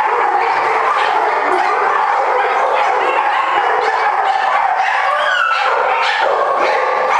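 Dogs in chain-link kennel runs barking without a break, many at once, with a high yelp that slides in pitch about five seconds in.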